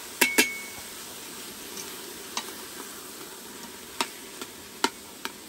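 Chopped vegetables sizzling in hot oil in an Instant Pot's metal inner pot on sauté mode. Near the start, a knife scraping them off a wooden cutting board knocks twice against the pot, one knock ringing briefly; afterwards a spoon stirs the vegetables, clicking against the pot now and then.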